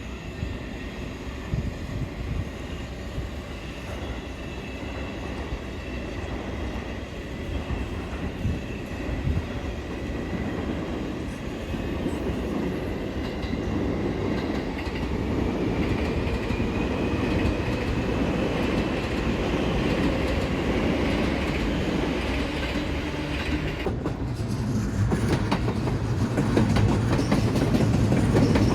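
Seibu Railway electric commuter train running along the track: steady wheel-on-rail noise with clickety-clack over the rail joints, growing louder toward the end. A faint high whine rises slowly in pitch through the middle.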